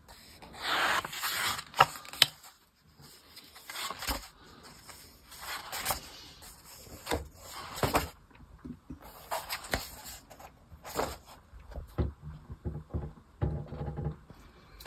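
Pages of a large hardcover comic album being turned and handled, the paper swishing and flapping in a series of short, irregular rustles and light knocks.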